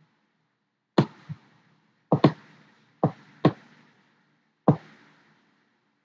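Computer mouse button clicking sharply about seven times, several clicks in close pairs, while the mouse is used to drag an on-screen slider.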